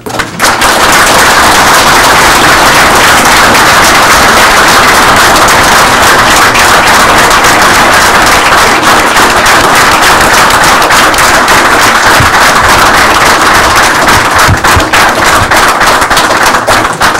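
A crowded room of people applauding, a dense, loud patter of many hands clapping that begins right away and thins out near the end.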